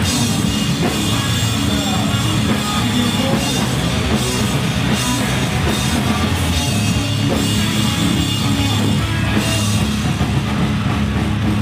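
Stoner-rock band playing live: electric guitar, bass guitar and drum kit together, loud and steady.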